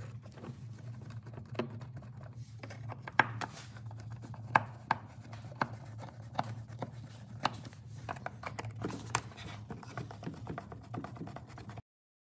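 Screwdriver backing the screws out of a plastic air filter box lid: scattered irregular clicks and scrapes of the tool and screws against the plastic, over a steady low hum. The sound cuts off suddenly near the end.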